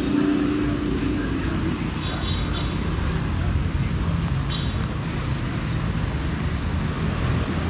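Steady low rumble of a motor vehicle engine running close by, with a faint even hum under it.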